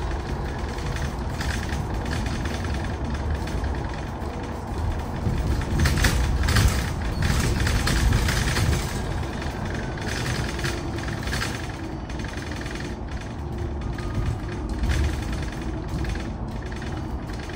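Cabin noise inside a Mercedes-Benz eCitaro G articulated electric bus on the move: a steady low road and tyre rumble with frequent short rattles and knocks from the body and fittings.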